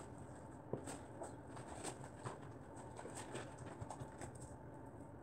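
Spoon stirring and lifting floam slime, glue slime full of foam balls, in a plastic bowl while it is being activated: faint, irregular wet squelches and clicks.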